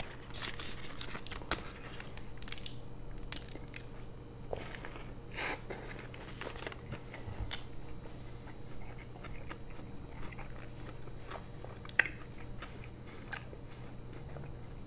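A person chewing a mouthful of burger close to the microphone: soft, wet mouth clicks and small crunches scattered through, with one sharper click about twelve seconds in.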